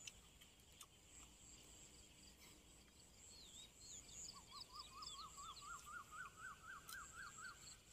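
Faint birds calling. One bird gives a quick run of repeated notes, about five a second, creeping up in pitch through the second half, while others add scattered higher chirps. A faint steady high-pitched tone runs underneath.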